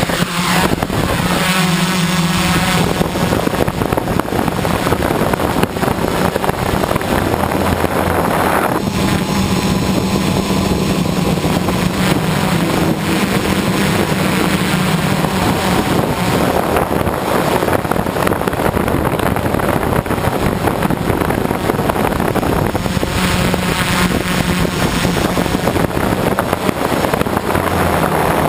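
A quadcopter's brushless motors and 9-inch props humming in flight, the pitch rising and falling now and then with throttle, over a steady rush of air.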